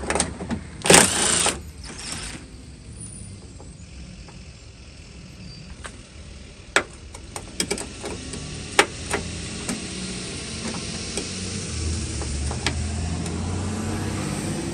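Socket wrench turning off the nut that holds the door lock cylinder inside a Ford truck door, with scattered sharp metal clicks and a loud burst of noise about a second in. A low rumble grows louder in the second half.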